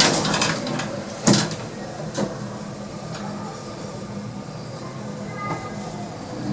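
Lift doors of a cheap generic hydraulic lift sliding shut, with two sharp clunks, followed by a steady low hum as the lift runs.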